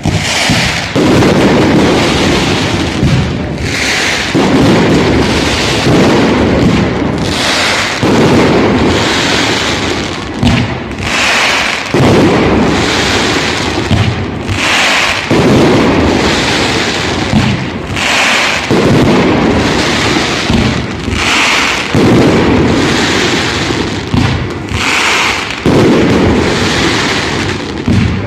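Fireworks display: a loud, continuous barrage of bursting shells, with low rolling booms and crackle surging anew every second or two.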